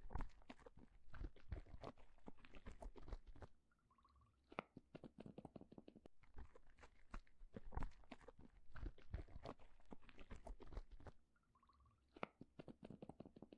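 Quiet, dense, irregular crunchy crackling and clicking, broken twice by a pause of about a second.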